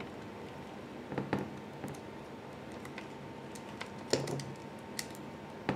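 A handful of faint, sharp clicks and taps as small parts and a tool are handled inside an opened Mac mini, with the most distinct click about four seconds in.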